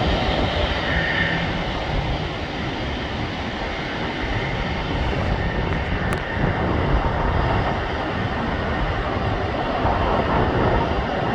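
Jet aircraft engines running, heard as a steady rushing noise without breaks.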